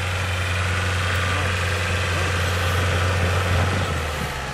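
Off-road 4x4's engine running steadily with a low hum that eases off about four seconds in.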